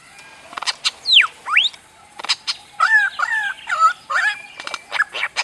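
A bird giving strange electronic-sounding calls that resemble science-fiction film sound effects. It starts with sharp clicks, then a steep falling whistle and a rising one, then a string of warbling, sweeping notes.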